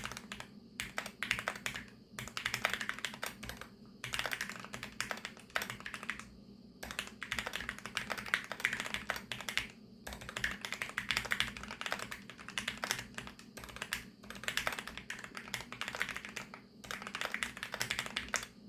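Fast typing on a mechanical keyboard with linear switches lubricated with Krytox 205: rapid runs of key clacks in bursts of a few seconds, with short pauses between them.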